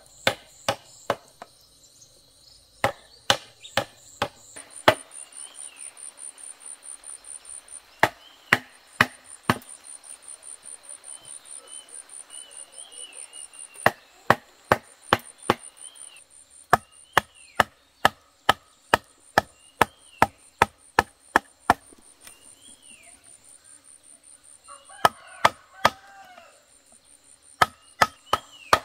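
A steel blade chopping and being knocked into bamboo poles: a long series of sharp knocks, often about two a second, with short pauses between runs. An insect trills in pulses behind them, and birds chirp now and then.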